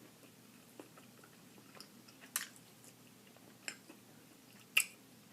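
Chewing fried chicken drumsticks close to the microphone: a handful of sharp, wet mouth clicks spaced irregularly, the loudest near the end.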